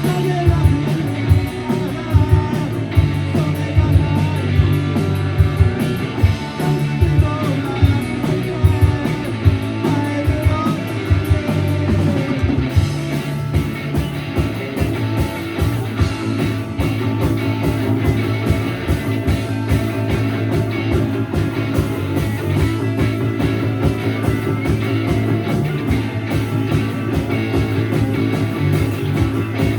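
Live rock band playing a garage-rock cover, with electric guitars, bass and drum kit playing continuously.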